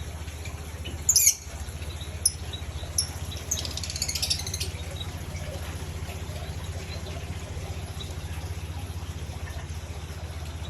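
Small aviary birds giving short, sharp, high chirps: a loud burst about a second in, single chirps near two and three seconds, and a run of twittering around four seconds. A steady low hum runs underneath.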